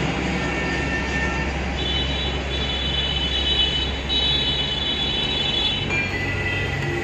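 Steady low rumbling background noise, with a faint high, thin tone of several pitches through the middle few seconds.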